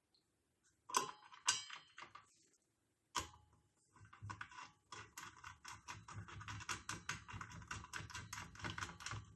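Faint metal clicks as the outer flange is fitted onto a circular saw's arbor, then a quick run of small ticks and scrapes from about four seconds in as the M6 Allen arbor bolt is threaded in by hand.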